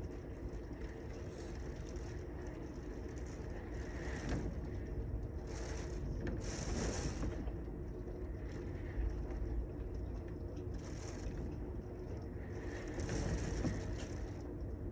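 Steady rain in a city street, over a constant low traffic rumble, with vehicles swishing past on the wet road several times.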